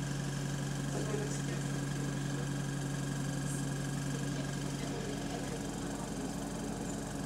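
Single-deck bus's diesel engine running steadily, heard from inside the passenger cabin as an even, deep droning hum over a low, rapid pulse; the bus's exhaust is burst.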